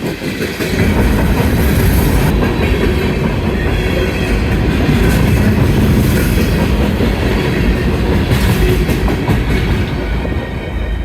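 CSX freight train rolling past, its cars and wheels running steadily over the rails, with no horn sounding.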